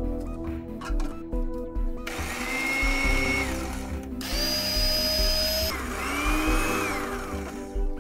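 Electric blade spice grinder run in three short pulses, about a second and a half each, grinding dried thyme to powder. Its motor whine rises as each pulse spins up and falls away as it stops. Background music plays throughout.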